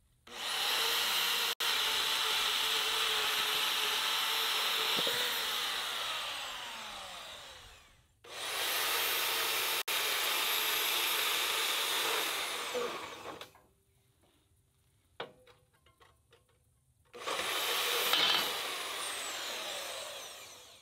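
Vevor portable bandsaw run three times. Each run starts abruptly on the trigger and trails off as the motor winds down, its whine falling in pitch. Between the second and third runs there are a few light clanks and ticks.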